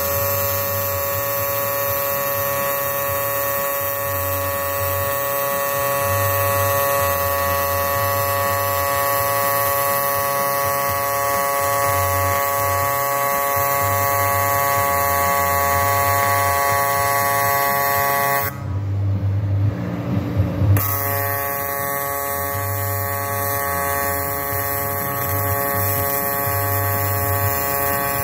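TIG welding arc on an aluminium intercooler, buzzing steadily with the harsh hum of AC welding current. About two-thirds through, the buzz stops for roughly two seconds and a few irregular bumps are heard, then the arc starts again and buzzes steadily.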